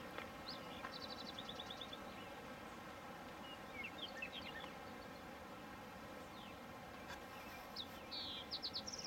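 Faint birdsong: a few quick trills of repeated high notes and scattered chirps, over a steady faint buzzing hum.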